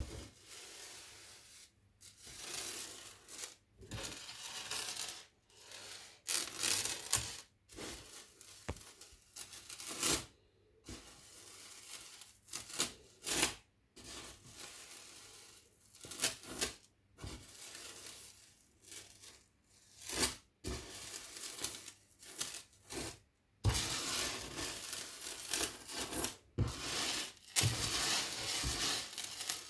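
Crispy crinkling and tearing noise from something thin and crisp being worked by hand. It comes in irregular bursts with sharp clicks between them, denser and more continuous near the end.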